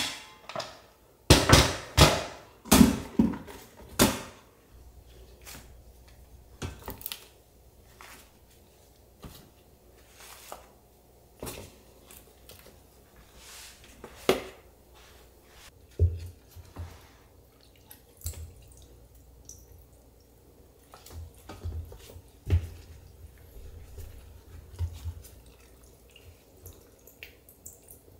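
Loud plastic-and-metal clacks as the lid of a Cuckoo electric pressure cooker is lifted off and set aside in the first few seconds. Then quieter scattered clicks, soft thumps and wet handling sounds as raw pork belly and kimchi are laid into its stainless inner pot.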